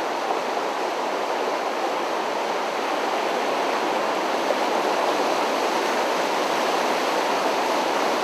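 A creek in flood, its water rushing past in a steady, unbroken rush.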